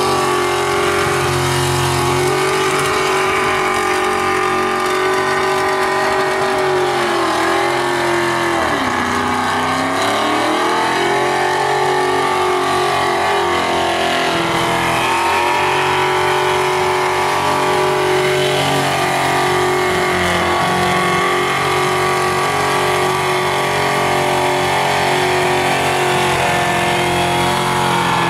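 Holden VP Commodore V8 engine held at high revs in a burnout, with the spinning rear tyres hissing under it. The revs dip once about eight seconds in and climb straight back, then stay high and steady.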